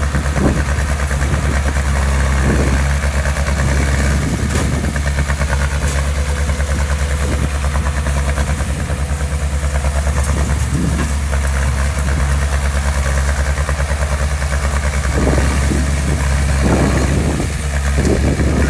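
Heavy-equipment diesel engine running steadily at low revs with a deep, fast throb, swelling briefly a couple of times near the end.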